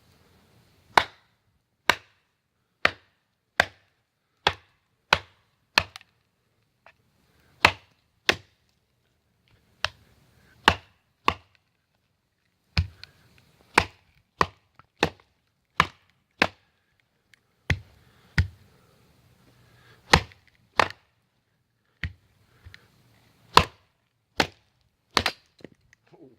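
Wood being chopped: about thirty sharp, single strikes at roughly one a second, in runs broken by short pauses.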